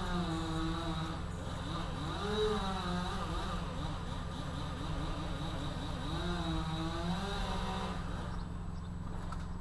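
Chainsaw engine revving up and down several times, its pitch rising and falling over a steady low hum, dying away near the end.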